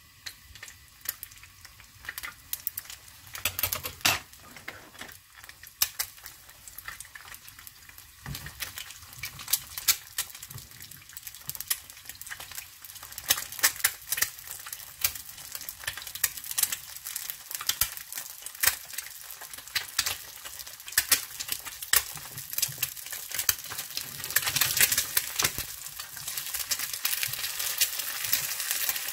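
An egg frying in hot cooking oil in a nonstick pan: a steady sizzle with many sharp crackles and pops, getting denser and louder near the end.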